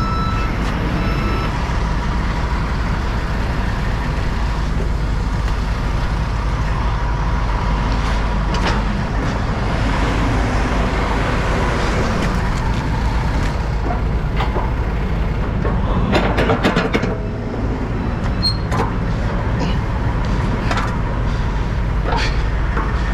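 Diesel engine of heavy equipment running steadily, a low rumble with a steady whine over it. A reversing alarm beeps a few times at the start, and a cluster of sharp knocks comes about sixteen seconds in.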